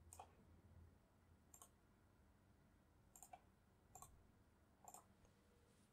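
A few faint computer mouse clicks, five short clicks spaced irregularly, over a faint low hum.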